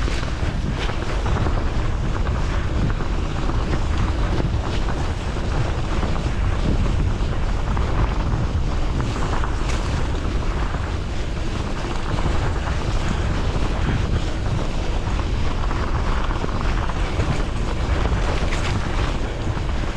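Wind rumbling steadily on the microphone of a rider-worn camera on a moving bicycle, mixed with tyre noise from gravel tyres rolling over a rough, wet road, and a few faint knocks.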